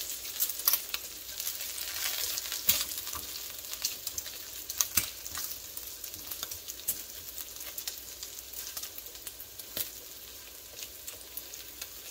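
Bacon pieces sizzling in a nonstick skillet, with a steady hiss dotted with sharp pops and the clicks of tongs turning the pieces. The sizzle is strongest over the first few seconds and eases later.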